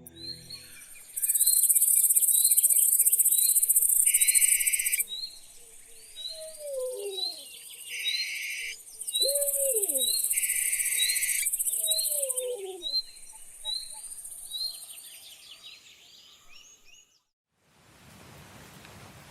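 Forest ambience: a bird repeats a short chirp about once a second while a loud, high insect buzz runs in two long stretches, broken by shorter trills. Three low, falling hoot-like calls come in the middle. It fades out near the end, and a steady hiss of soft rain takes over.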